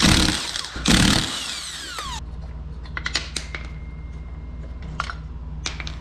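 Milwaukee impact wrench hammering the wheel's lug nuts loose in two short bursts in the first two seconds, its motor winding down with a falling whine after each. After that come a few light metallic clicks as the loosened nuts are handled.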